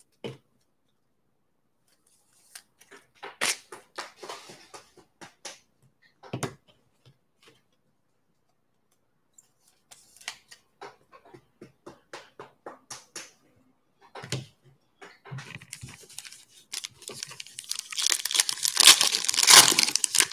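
Scattered light rustles and taps, then a foil Panini Mosaic basketball card pack being torn open, with crinkling that builds over the last few seconds and is loudest near the end.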